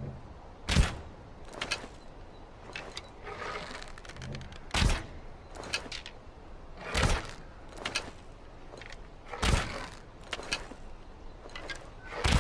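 Longbow being shot repeatedly: five sharp snaps of the string about two to three seconds apart, each followed by a few lighter clicks.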